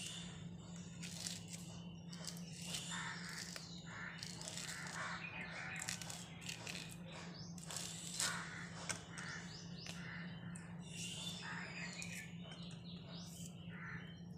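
An orange being peeled by hand, the peel tearing and rustling in short strokes. Birds call over and over in the background over a steady low hum.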